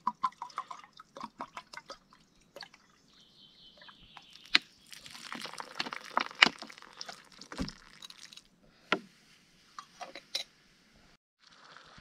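River water pouring and dripping into a container, with scattered clicks and knocks.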